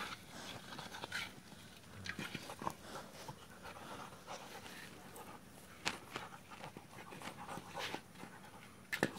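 Labrador retriever puppy panting while it mouths and chews a rubber ball, with irregular clicks and scrapes from the toy and a sharper click near the end.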